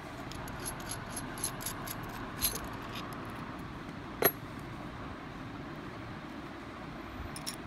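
Light metallic clicks and clinks as a chrome Kinki paint spray gun is handled and turned in the hands, with one sharper clink about four seconds in, over a steady background hiss.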